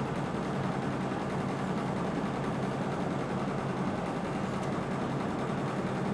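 Steady hum and whir of an electric fan running.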